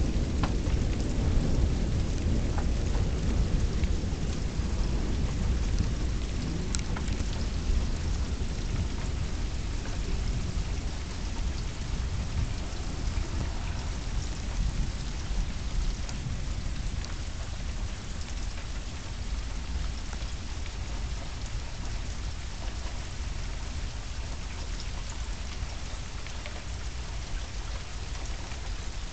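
Steady rain falling, with a low rumble of thunder that slowly dies away over the first several seconds.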